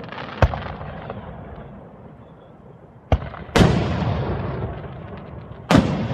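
Aerial firework shells bursting close overhead: four sharp bangs, the two loudest a little past halfway and near the end, each trailing off in a long rolling rumble.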